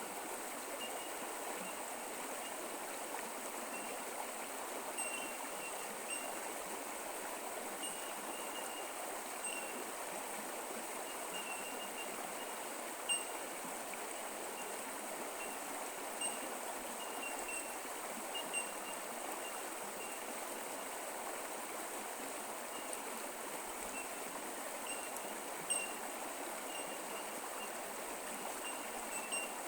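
Creek water running steadily over its bed, an even babbling flow with a few brief louder splashes.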